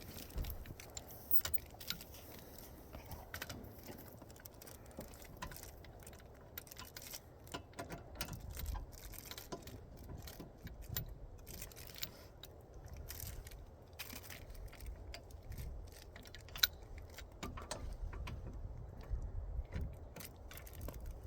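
Scattered light metallic clinks and scrapes of tools being handled during a flat-tire change, over a faint low rumble.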